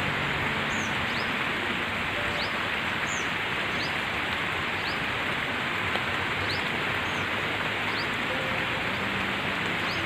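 Steady rain falling on wet paving, puddles and leaves, an even hiss. Above it, a bird repeats a short rising chirp about once a second.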